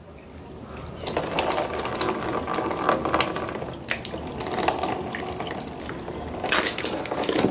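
Saline from a nasal rinse squeeze bottle running into one nostril and out of the other, splashing into a plastic tub. The splashing builds up about a second in and keeps going.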